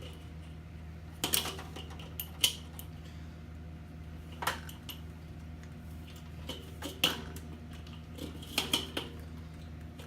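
Hand tools clinking against metal: a socket and vice grips knocking on a seized nut and bolt on a Weber grill kettle while trying to break it loose. Scattered sharp metallic clicks a second or more apart, over a steady low hum.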